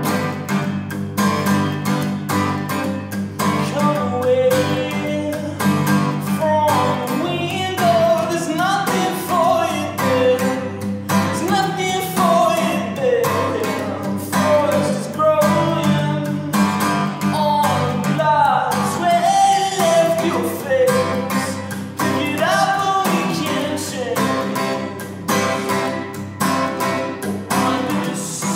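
Man singing with a strummed acoustic guitar; the guitar plays alone for the first few seconds before the voice comes in.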